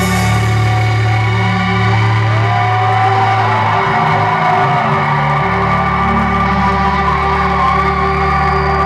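Live indie-pop band playing sustained, droning music: held guitar and synth chords over a low bass note that shifts a few times, with no drum hits.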